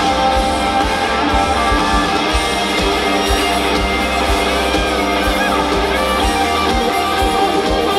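Rock band playing live at full volume: electric guitars over drums with a steady beat.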